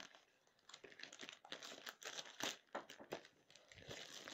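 Grey plastic wrapping crinkling and rustling as hands pull it open, in faint, irregular bursts.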